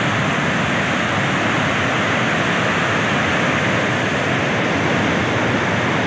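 A large waterfall in full flow: a loud, steady rush of falling water.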